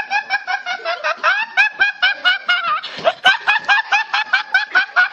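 A teenage boy laughing uncontrollably: a rapid, high-pitched string of short laughs, about six or seven a second, without a break.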